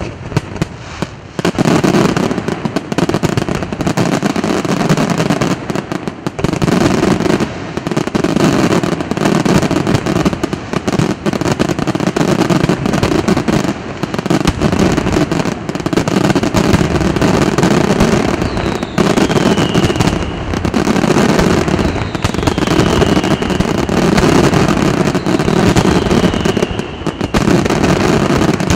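Aerial fireworks display: a dense, nearly unbroken barrage of shell bursts and crackle that starts about a second and a half in. A short falling whistle cuts through it four times in the second half.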